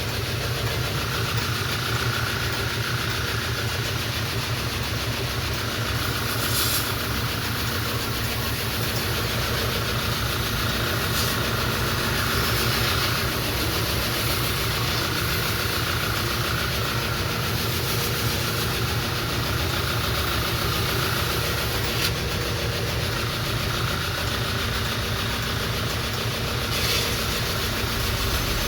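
Belt grinder running with a coarse belt, a bill hook's edge held on it edge-trailing as if stropping. A steady motor hum and hiss runs underneath, and the grinding contact comes and goes in passes every few seconds.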